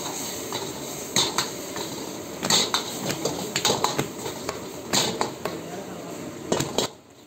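Metal ladle scraping and clanking against an iron kadai as chilli chicken is stir-fried, with a dozen or so sharp strikes, often two or three in quick succession, over the steady sizzle of frying. The clatter stops shortly before the end.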